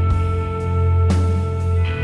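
Background music: held chords over a deep, steady bass drone, with a single percussive hit about a second in.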